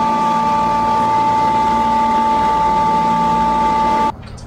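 York YCAS air-cooled screw chiller running, a steady hum with a high steady tone over mechanical noise; its compressor's oil-slide control valve is stuck, keeping it from unloading. The sound cuts off abruptly about four seconds in.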